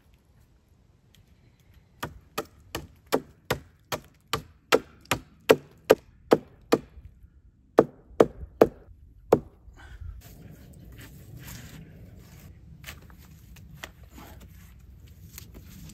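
A wooden stake being chopped to a point with a blade, resting on a log: a run of sharp wooden chops, about two and a half a second, with a short break midway, ending about ten seconds in. Faint rustling follows.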